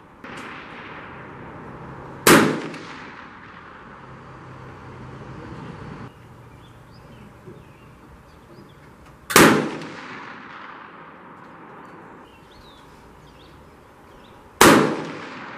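.270 Winchester rifle firing cast lead bullet loads: three shots, each a sharp crack with a fading echo, about seven and then five seconds apart.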